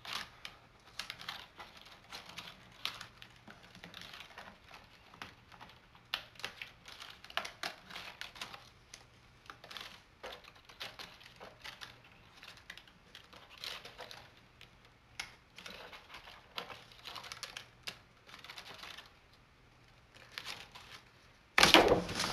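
Adhesive Cricut cutting mat being slowly peeled away from heavyweight cardstock, giving a run of small, irregular crackles and ticks as the sticky mat lets go of the paper. A louder, fuller rustle near the end as the mat comes free.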